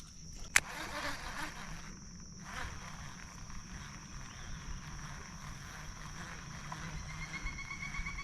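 Insects droning steadily in one high thin tone over a low rumble, with a single sharp click about half a second in.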